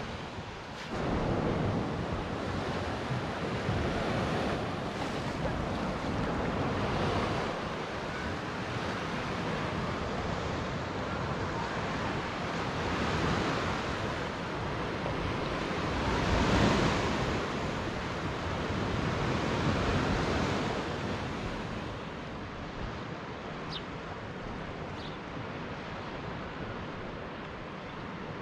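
Baltic Sea waves washing onto a sandy beach, the surf swelling and easing every few seconds, with wind buffeting the microphone. The sound grows somewhat quieter over the last several seconds.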